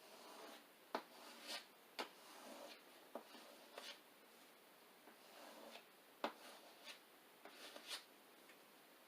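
Faint squeegee strokes over a vinyl decal on a windshield: a handful of short scraping rubs, with a few sharp ticks between them.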